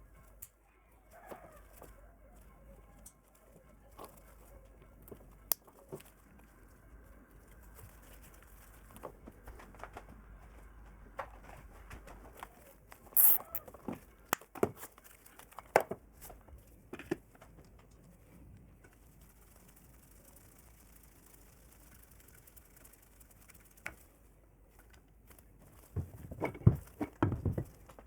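Scattered clicks and knocks of hand work on metal parts, with some rustling, and a quick run of louder knocks near the end.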